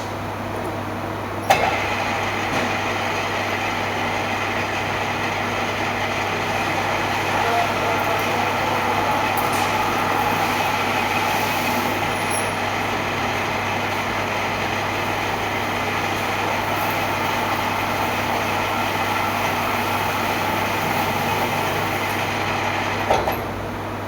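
An electric machine motor running steadily with a constant hum. It is switched on with a click about a second and a half in and stops near the end.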